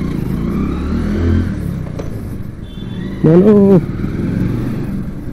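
Motorcycle engine running under way with street traffic noise around it. About three seconds in, a loud vehicle horn blasts for about half a second.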